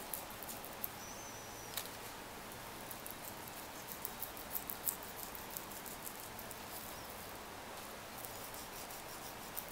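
Small knife cutting into raw duck breast fat on a wooden board: faint, scattered light ticks and scrapes.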